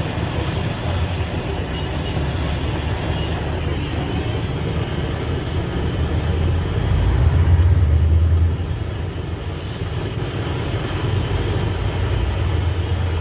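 Steady low rumble of a running motor vehicle, swelling louder for a second or so about seven seconds in.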